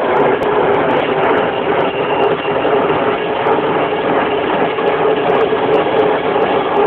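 Helicopter engine and rotor noise: a loud, steady sound with a constant hum running through it.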